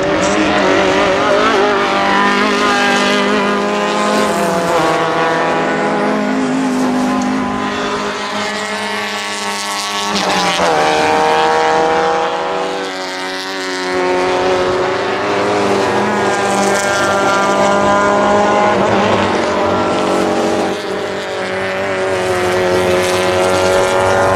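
A pack of small Alfa Romeo and Fiat racing saloons running at full throttle, several engines overlapping. Their notes climb and drop again and again through gear changes, swelling and easing as the cars pass through the corners.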